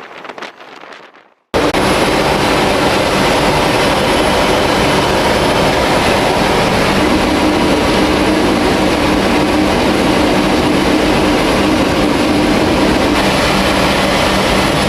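Loud, steady aircraft noise: an even engine drone with a few held hum tones under a strong hiss. It starts abruptly about a second and a half in, after a short stretch of gusty, wind-like noise.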